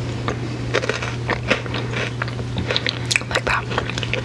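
Close-miked crunching and chewing of a bite of candy bar: many small crisp crunches at an uneven pace, over a steady low hum.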